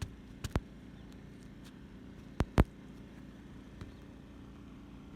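Several short, sharp knocks or clicks over a low steady hum: two close together about half a second in, a louder pair about two and a half seconds in, and a faint one near the end.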